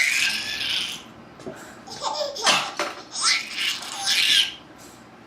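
Baby laughing in high-pitched bursts: a squealing laugh at the start, then a run of giggles about two seconds in that stops near the end.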